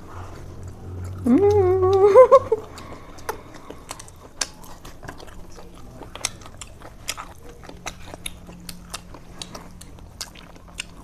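A person biting and chewing pork sausage close to the microphone, with many small irregular wet clicks and smacks. A brief voiced sound comes about a second in.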